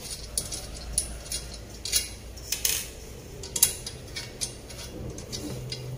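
Small metal clicks and scrapes of a screwdriver, screw and metal handle bracket being fitted at the rim of a stone-coated nonstick frying pan, with a short scrape a little before the middle and a louder clink about three and a half seconds in.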